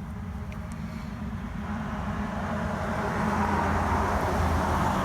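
A motor vehicle running with a steady low hum, its noise swelling louder from about two seconds in as it draws nearer.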